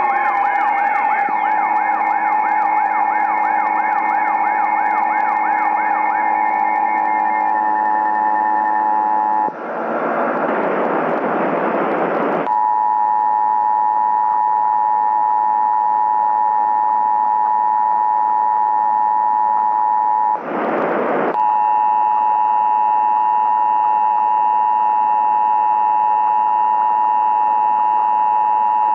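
Several emergency-alert attention tones sound over one another. For the first several seconds steady tones are layered with a fast warbling tone. About ten seconds in, a burst of noise lasts some three seconds, and then the EAS two-tone attention signal holds steady. A shorter noise burst comes about twenty seconds in, after which a higher steady tone joins.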